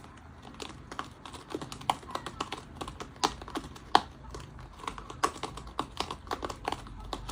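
A rapid, irregular run of light clicks and taps, several a second, a few of them sharper and louder.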